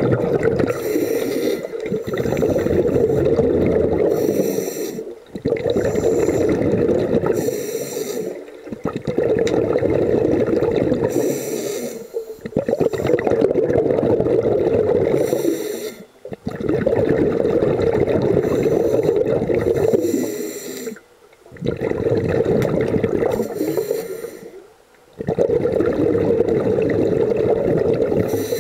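Scuba diver breathing through a regulator, heard underwater through a camera housing: long bubbling exhalations about every four seconds, separated by short pauses.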